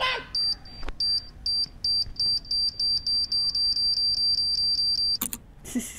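High electronic beeping, speeding up from about four beeps a second until it runs into one held tone, like a bomb timer counting down. It stops with a sharp click about five seconds in.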